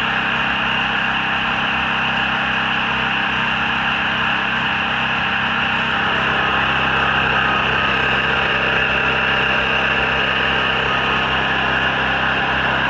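DuroStar DS4000S portable generator's gas engine running at a steady speed with an even hum, without change.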